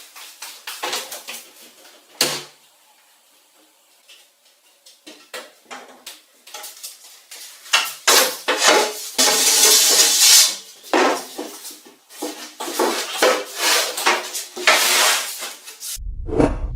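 Metal objects clattering, clinking and knocking as they are handled, with stretches of scraping. A bass-heavy music track starts near the end.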